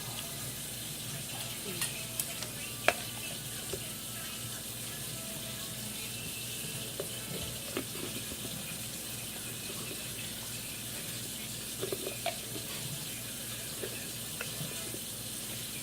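Scattered light clicks and taps of a spoon against the jar and container while sticky royal jelly is scooped in. The sharpest tap comes about three seconds in, and a small cluster follows near the twelve-second mark. A steady low hiss and hum sit underneath.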